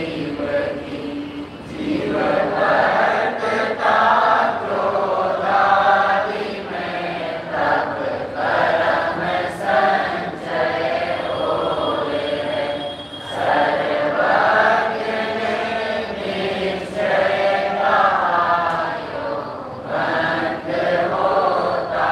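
A group of voices chanting a Hindi devotional verse together to a simple sung melody, in phrases of a second or two with brief breaks between them.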